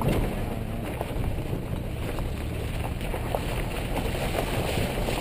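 Vehicle driving slowly over a rocky gravel riverbed: a low steady engine rumble with tyres crackling over loose stones, and wind buffeting the outside-mounted microphone.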